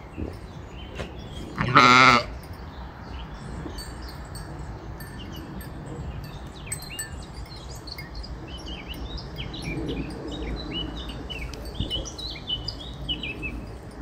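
A sheep bleats once, a loud, wavering bleat about two seconds in. Faint bird chirps follow through the rest.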